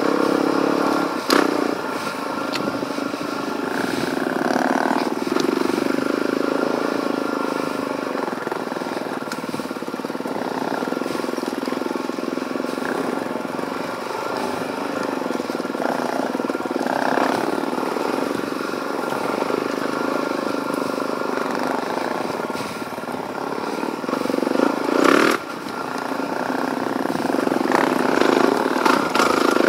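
Suzuki DRZ400E single-cylinder four-stroke dirt bike engine pulling along a trail, revving up and down with the throttle. A brief sharp knock comes about five seconds before the end.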